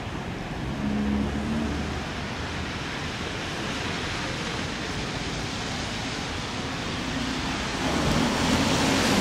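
Street traffic on a wet road: car tyres hissing on the wet asphalt, growing louder near the end as a car passes close.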